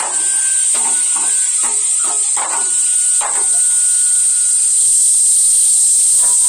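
Ground fireworks spraying with a steady, loud, high hiss, a few faint pops and whistles scattered through it.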